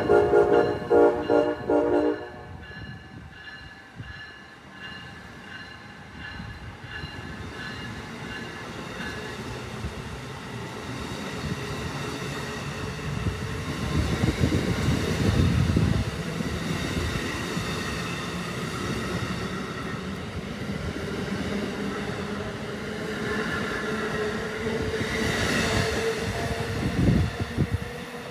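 Amtrak ACS-64 electric locomotive's horn sounding a run of short blasts, which stop about two seconds in. Then the train's passenger cars roll by with steady wheel-on-rail noise and thin high squealing tones, swelling about halfway through and again near the end.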